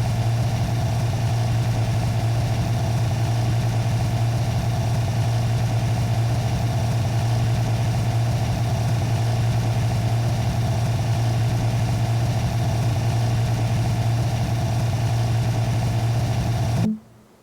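A steady low engine drone with a constant hiss over it, as from a vehicle idling. It cuts off abruptly near the end.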